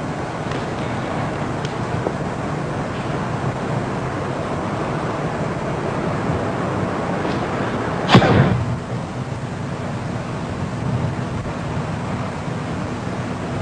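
Steady hiss and hum of an old videotape soundtrack, with one sharp impact about eight seconds in that rings briefly in the room.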